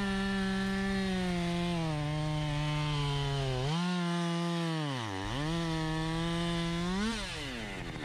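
Husqvarna 550 XP two-stroke chainsaw cutting a birch log. The engine note sags as the chain bites and recovers, dips sharply about five seconds in, then climbs briefly and falls off near the end.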